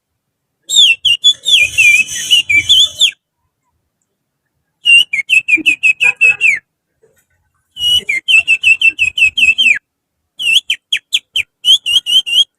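Finger whistling imitating an Oriental magpie-robin's song: four loud bursts of quick, high, downward-slurred notes with short pauses between them.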